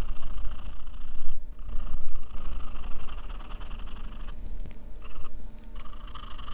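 Pencil graphite scratching on sketch paper in repeated back-and-forth shading strokes, stopping briefly a few times.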